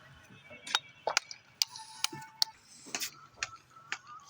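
Masons' steel trowels tapping and clinking on bricks during bricklaying: sharp, irregular ticks, about two a second.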